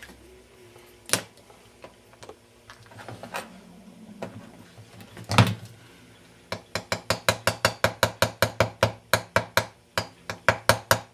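Light metal taps on a small 1/25th scale metal dump valve part: a couple of separate knocks, then a quick, even run of taps at about four a second over the last few seconds.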